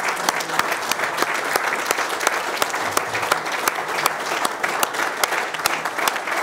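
A roomful of people applauding steadily, many hands clapping at once: a standing ovation at the end of a talk.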